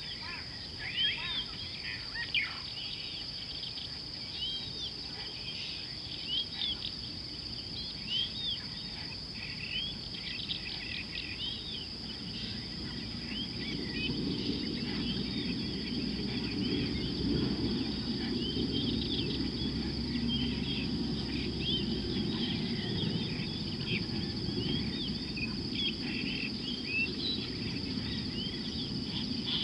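Steady high-pitched insect drone with many short bird chirps and calls over it. A low rushing noise comes in about halfway through and stays to the end.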